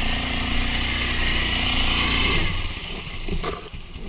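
Quad bike engine running hard and steady, then easing off sharply about two and a half seconds in. A knock follows about a second later.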